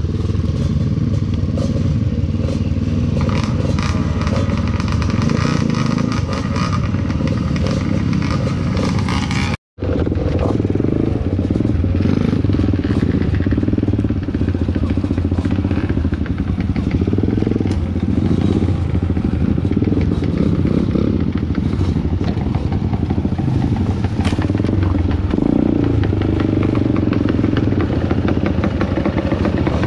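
Motorcycle engine running steadily as the bike rides a rough trail, with clatter and knocks from the bike over bumps. The sound cuts out completely for a moment about ten seconds in.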